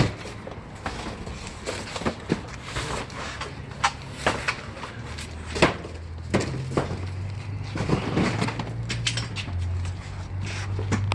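Boxes and belongings being handled and moved about: scattered knocks, clunks and rustling, with a steady low hum coming in about halfway through.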